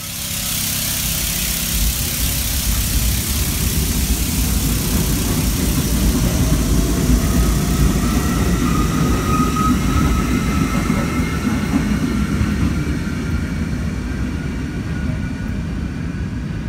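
R68-series subway train pulling away along elevated tracks: a steady low rumble of wheels on rail, with hiss that fades as the train recedes and a faint whine in the middle.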